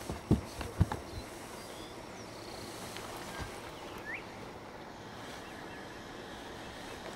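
A few knocks on a boat deck as a landed largemouth bass flops and is picked up, then a steady quiet outdoor hiss with one short rising chirp about four seconds in.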